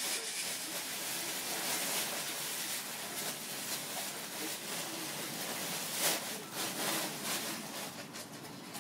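Thin plastic shopping bag crinkling and rustling as a cat moves and struggles inside it, with a louder crackle about six seconds in.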